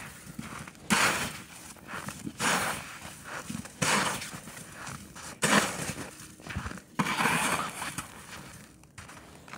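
Short snow shovel scraping across the ice and scooping packed snow, about five strokes roughly a second and a half apart, with snow crunching.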